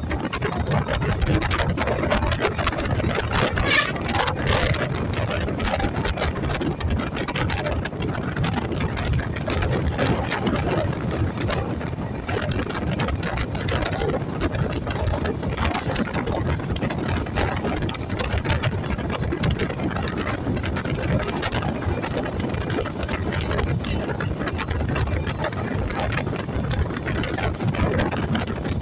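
Steady rumble and rattle of a moving vehicle, with many small clicks and knocks throughout.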